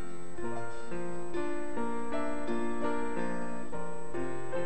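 Keyboard playing slow, held chords that change about twice a second, an instrumental passage with no singing.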